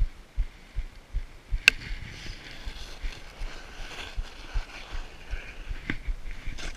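Wind buffeting a helmet-mounted action camera's microphone during a fast ski descent, with a steady hiss of skis running through snow. A sharp click about a second and a half in, and a smaller one near the end.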